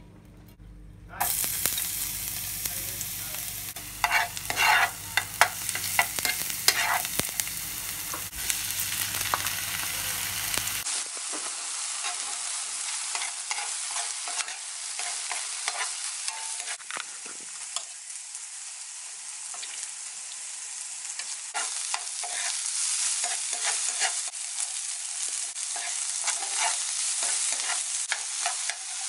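Diced ham and carrot sizzling in hot oil in a nonstick frying pan, stirred with a metal spoon that scrapes and clicks against the pan. The sizzling starts about a second in, and the clicks are sharpest a few seconds after that.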